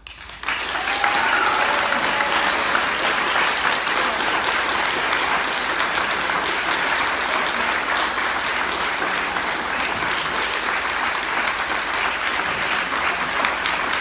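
Audience applauding after a song, breaking out suddenly about half a second in and keeping up at a steady level.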